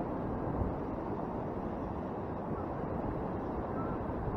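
Steady wind rushing over the microphone, mixed with the wash of ocean surf, an even noise without distinct events.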